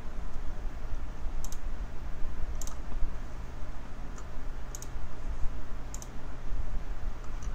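Computer mouse clicking four times, each a short, sharp double click of press and release, over a steady low hum.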